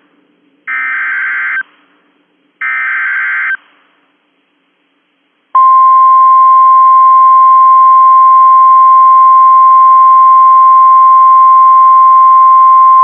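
Two short bursts of EAS SAME header data, each about a second long and buzzy, the last of the three header repeats. After a gap of about two seconds, the NOAA Weather Radio warning alarm sounds: a loud, steady single tone near 1 kHz (the 1050 Hz attention tone) that starts about five and a half seconds in and holds without change.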